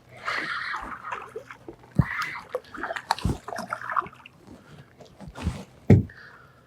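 A small hooked redfish splashing and sloshing at the water's surface as it is landed, broken by several sharp knocks.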